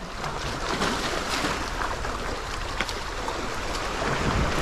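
Sea water washing and splashing over shoreline rocks, a steady rush that swells a little near the end, with a couple of small clicks.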